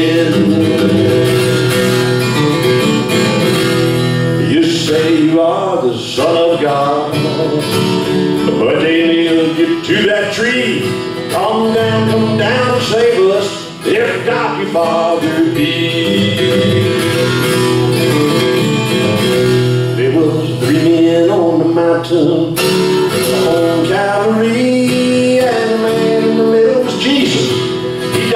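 A man singing a country gospel song into a microphone while playing a steel-string acoustic guitar.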